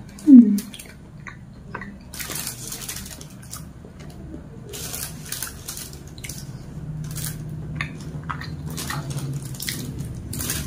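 Wet chewing and lip-smacking sounds from eating satay off a wooden skewer, a run of short smacks and clicks. About half a second in there is a brief, loud vocal sound that falls in pitch, like an 'mm'.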